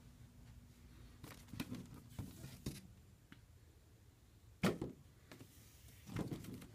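Cardboard doll boxes being handled: scrapes and light knocks as a boxed doll is lifted out of a stack and put back, with a sharper knock about two-thirds of the way in.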